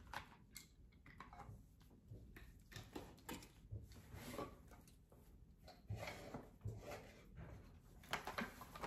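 Faint scattered knocks, clicks and scrapes from thrifted objects being rummaged through and shifted about in a pile.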